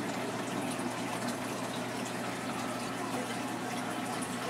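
Saltwater reef aquarium's water circulation running: a steady rush and trickle of moving water over a faint, even hum.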